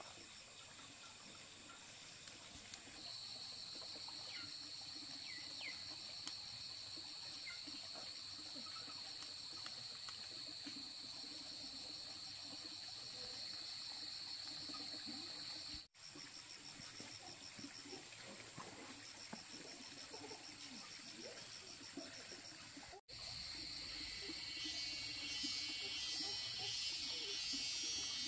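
Insects chirring, a steady high trill with a faster pulsing trill above it. The sound breaks off for a moment twice, and a denser, louder buzz comes in near the end.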